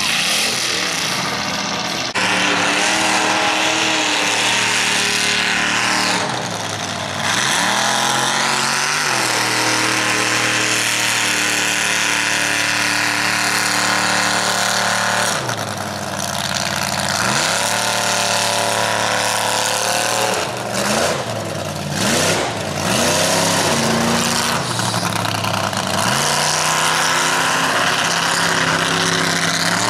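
Motor vehicle engine running at high revs. Several times the engine pitch drops sharply and climbs straight back, as the throttle is let off and opened again.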